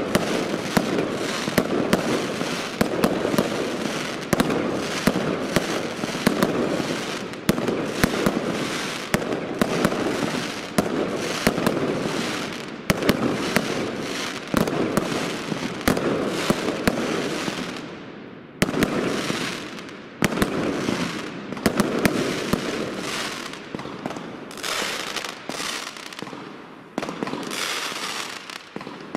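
A fireworks battery firing a rapid, continuous volley of shots and aerial bursts. There is a brief lull about 18 seconds in, and the bangs come sparser near the end.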